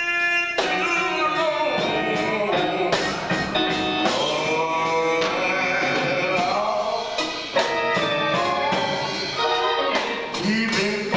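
A man singing gospel in long, drawn-out phrases, with instrumental accompaniment.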